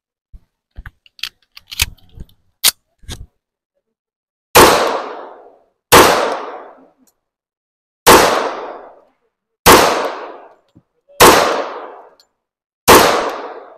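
A few light knocks, then six loud gunshots in a steady string, about one and a half seconds apart, each trailing off in a long echo.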